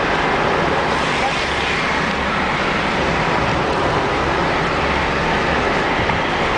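Steady road and engine noise of a moving car, heard from inside its cabin, with a low rumble underneath.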